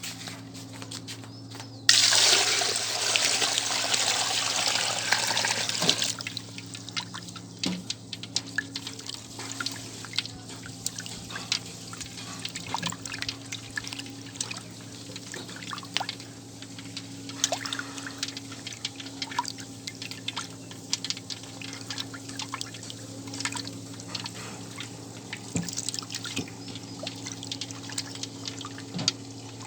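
Water pouring loudly for about four seconds near the start, then scattered drips and small splashes. A steady low hum runs underneath.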